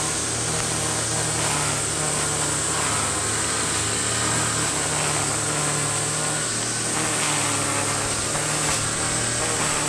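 Engine brush cutter idling steadily, a low even hum, with cicadas droning in a steady high pitch.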